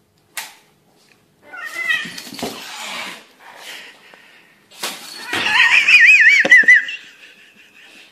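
Domestic cat hissing and yowling: a hiss with a wavering growl about one and a half seconds in, then a loud, wavering, high-pitched yowl from about five to seven seconds.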